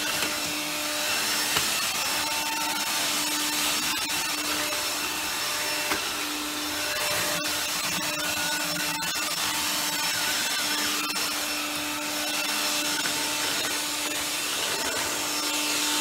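AEG Ergorapido cordless stick vacuum running steadily as it is pushed over carpet: a motor whine over a hiss of rushing air.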